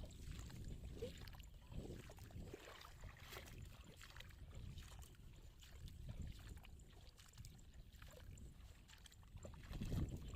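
Faint water sloshing and splashing with scattered small clicks over a low rumble, a little louder near the end.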